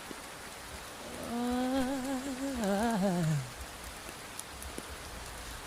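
Steady rain sound, with one low sung vocal note from about a second in that wavers and then falls away by about three and a half seconds.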